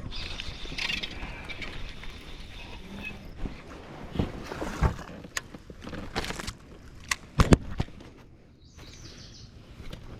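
Knocks and clicks of gear being handled aboard a fishing kayak, with a hiss in the first few seconds; the loudest is a pair of sharp knocks about seven and a half seconds in.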